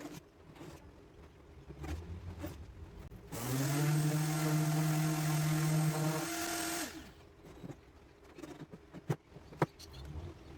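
Carts & Millie Prepmate 2 brushless random orbital sander, with the shop vac hooked to it, running steadily for about three seconds, then switched off. Scattered knocks and clicks come before and after it.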